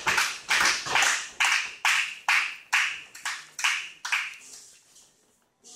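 Rhythmic rallying beat of claps and stomps, about two and a half a second, each sharp and echoing. It thins out and stops about four and a half seconds in.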